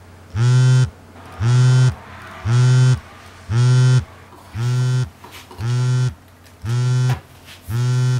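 A mobile phone vibrating in a jeans pocket for an incoming call: a low buzz repeating about once a second, eight buzzes of just over half a second each, every one slightly rising in pitch at its start and dropping at its end.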